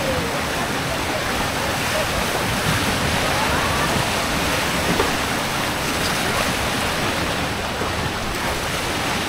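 Water churning and rushing steadily as the boats of a Zierer Jet Ski water carousel sweep round through the pool, ploughing up wakes.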